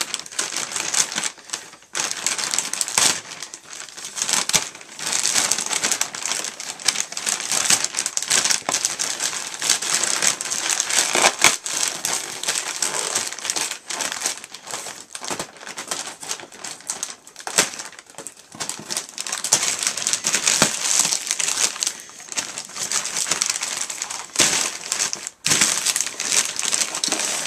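Plastic poly mailer bag crinkling and crackling as it is handled and torn open by hand, a dense run of rustling with a few brief pauses.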